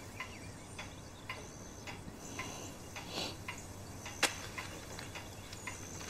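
Faint light ticks, roughly twice a second, over quiet room tone, with one sharper click about four seconds in.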